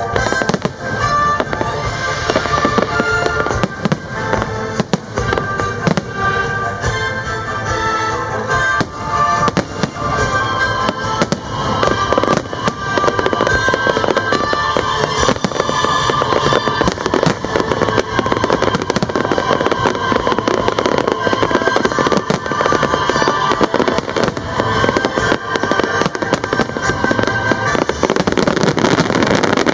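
Aerial firework shells bursting and crackling in rapid, overlapping succession, with many bangs a second. The bursts thicken into a dense barrage near the end.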